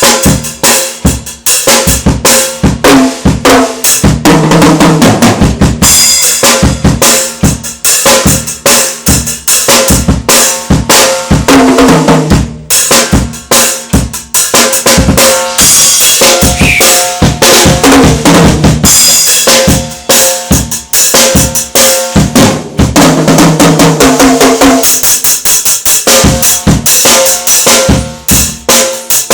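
A drum kit played loudly in a soundcheck: kick drum, snare and cymbals keep up a dense, steady beat, with sustained pitched notes underneath.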